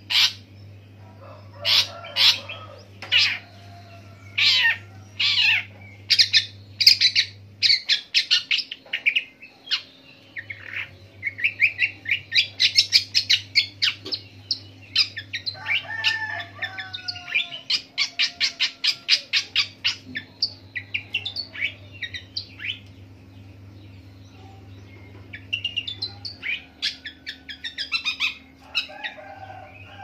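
Caged long-tailed shrike singing a long, varied song that mimics other birds' calls: loud separate sharp notes at first, then fast rapid trills, then scattered notes near the end. A low steady hum in the background switches on and off.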